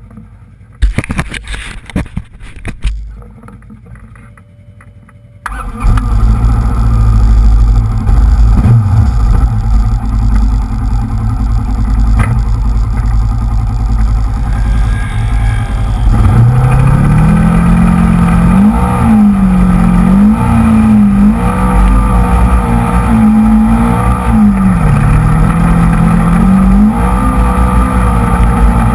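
Polaris RZR XP 900 side-by-side driving in sand: its engine runs hard under heavy rumbling wind and ride noise on an onboard camera. The sound turns loud about five seconds in, and in the second half the engine pitch rises and falls again and again as the throttle is worked.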